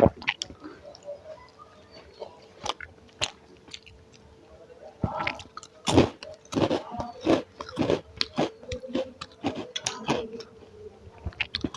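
A person eating close to the microphone: irregular chewing, smacking and crunchy bites, busiest in the second half.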